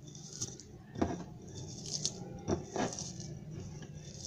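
Sliced onions and chopped green chillies being squeezed and mixed with salt by hand on a glass plate: soft squishing and rustling, with a few sharp clicks.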